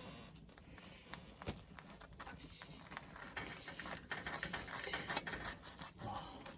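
Wood fire crackling: many small irregular pops and clicks over a hiss, busier from about two seconds in.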